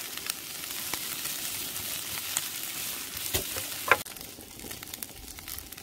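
Sundae and vegetables sizzling and crackling in a grill pan on a portable gas stove, stirred with a wooden spatula, with one sharp knock against the pan about four seconds in.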